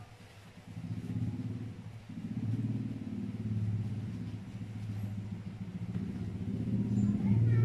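An engine running: a low, steady drone that swells and fades a few times and grows louder near the end.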